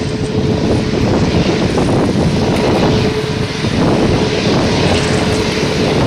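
Airbus A380's jet engines running, a loud, steady rumble with a single steady tone running through it.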